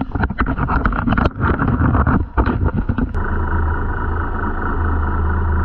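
A fishing boat's engine drones steadily. For the first three seconds it is mixed with quick, irregular knocking and clattering, then it runs on evenly.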